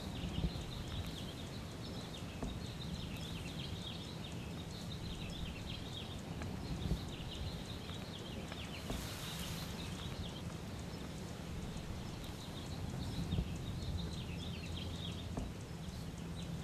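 Quiet background ambience: a low steady hum under faint, rapid high chirps that thin out in the middle, with a brief hiss about nine seconds in.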